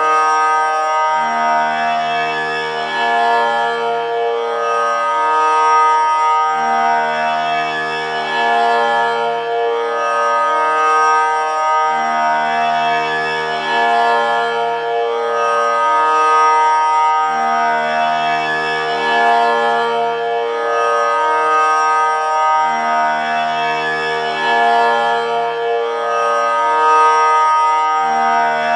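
Tanpura drone: its strings plucked in a slow repeating cycle, about every five to six seconds, sustaining a steady drone rich in overtones.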